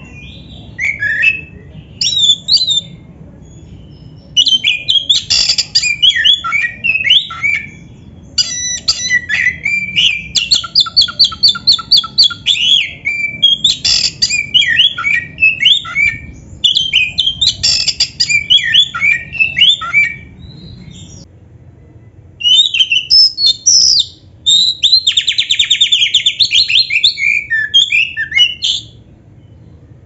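Black-breasted oriental magpie-robin (kacer) singing: long, varied phrases of whistles and harsh squawky notes, broken by short pauses, with two stretches of fast repeated rattling trills, one about a third of the way through and one near the end.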